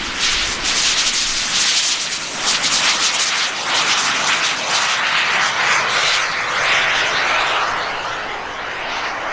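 FLS Microjet's PBS TJ100 turbojet going by: a loud, high-pitched jet rush that swells within the first half second and fades over the last couple of seconds.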